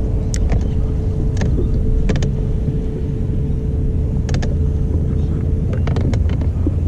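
A boat's motor running steadily as the boat moves, with a low rumble and a thin steady hum that stops about six seconds in. Several short knocks sound over it.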